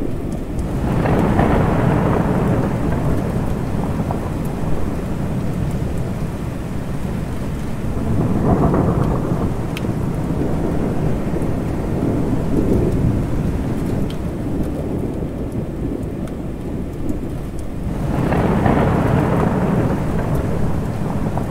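Steady rain with rolling thunder. The thunder swells about a second in, again around eight seconds, and once more near the end, with a low rumble running underneath the rain between the rolls.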